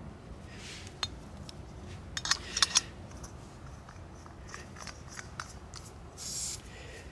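Metal clicks and snicks of a folding canister stove's pot-support arms being opened out, the loudest cluster about two to three seconds in, then lighter scraping clicks as the stove is screwed onto a gas canister, with a short hiss near the end.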